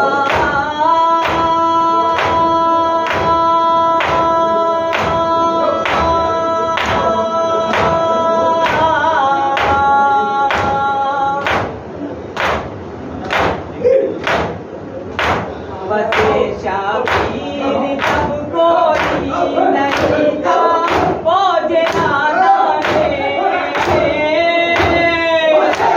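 Group of men chanting a noha in unison, holding long notes, over the steady thud of matam: open palms beating on chests about one and a half times a second. The held chant breaks off about halfway through, and another long note swells near the end.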